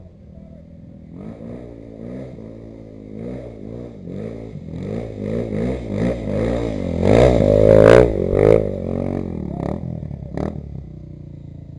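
Off-road vehicle engine revving up and down again and again, its pitch rising and falling, growing louder to a peak about seven to eight and a half seconds in, then easing off.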